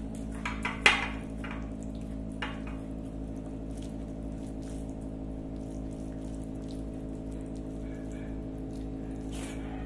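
Fingers mixing and scooping rice with curry on a plate: small wet, sticky clicks and squishes, with one sharp click just before a second in, over a steady low hum.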